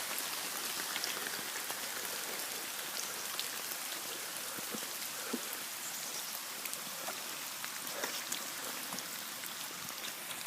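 Heavy rain falling steadily, with many scattered sharp taps of individual drops.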